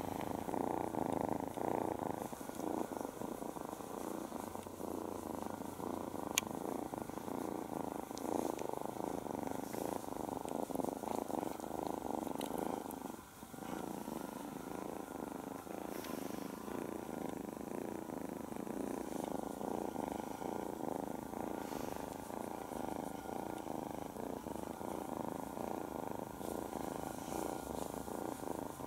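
A nine-week-old kitten purring steadily, with a brief break about halfway through.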